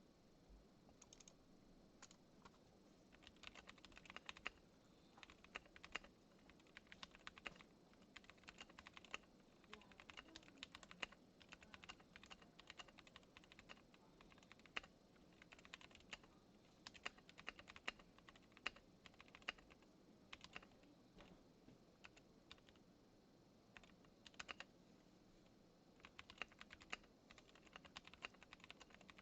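Typing on a custom acrylic-cased 60% mechanical keyboard with linear switches (Tealios housings, UHMWPE stems, Cherry MX Black springs) and Cherry clip-in stabilizers: fast runs of soft key clacks in bursts, with brief pauses between them.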